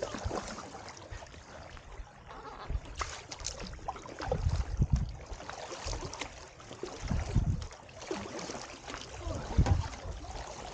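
Kayak paddle strokes: the blade dipping and splashing, with water trickling and lapping against the plastic hull. A low slosh comes every few seconds as the stroke changes side.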